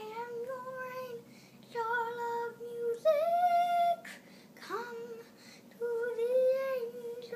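A young boy singing long, held wordless notes, a steady note at a time with short breaks between. A higher note comes about three seconds in, and a note scoops up into place near five seconds.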